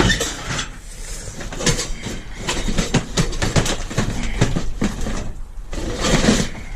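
Irregular clattering, knocking and rattling of scrap being handled: boxes and loose metal bits shifted and rummaged through.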